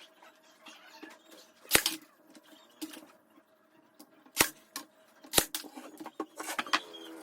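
A brad nailer firing three sharp shots, a few seconds apart, driving brads to tack plywood drawer-box panels together, with lighter knocks of the wood being handled near the end.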